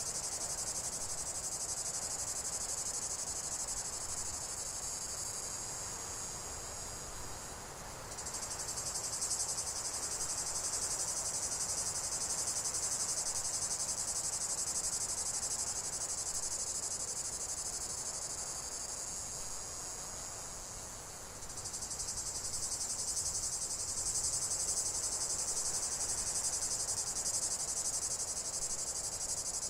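A dense, high-pitched insect chorus that runs on steadily, fading slightly and then picking back up sharply about eight seconds in and again about twenty-one seconds in.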